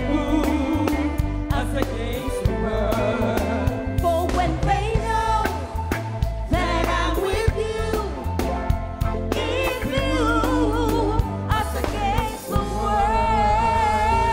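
A live reggae band with a strong bass and drums, and a woman singing lead over backing vocals. Near the end she holds one long note with vibrato.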